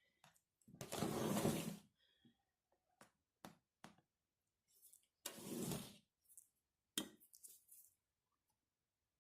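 Kitchen handling sounds over a tray of semolina dough: two scraping or rustling sounds about a second long, and a few light taps and clicks between them.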